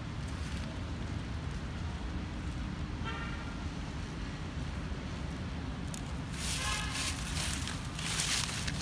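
Dry fallen leaves rustling and crackling as macaques move about on them, starting about six seconds in and loudest near the end, over a steady low outdoor rumble. A short tonal toot sounds about three seconds in.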